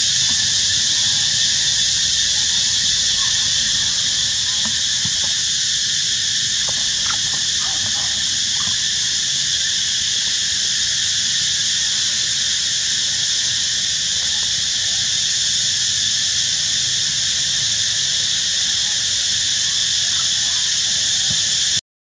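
Dense insect chorus droning steadily at a high pitch without a break, cutting off abruptly at the very end.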